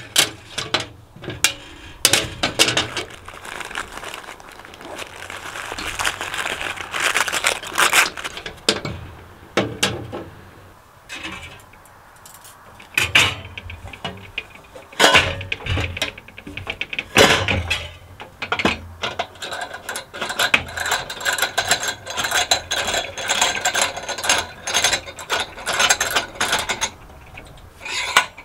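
Clinks, knocks and scrapes of steel camp-stove parts (poker, stainless stove-pipe sections and stove body) being picked up, set down and fitted on a glass tabletop, in irregular bursts.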